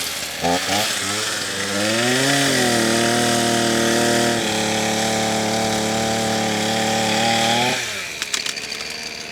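Old two-stroke chainsaw, unused for years, blipped a couple of times, then run up to high revs and held there for about five seconds before dropping back to a rough idle near the end.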